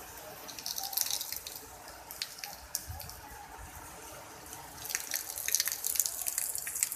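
Water dripping and splattering in quick, irregular drops over a steady hiss, busier about a second in and again from about five seconds on.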